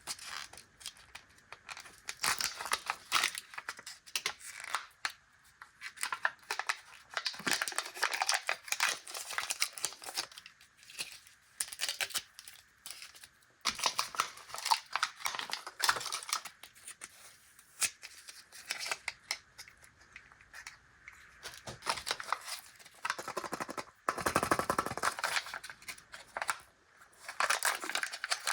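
Plastic candy wrappers being torn open and crinkled by hand, in bursts of crackling with short pauses between them. Near the end comes one louder, fuller rustle.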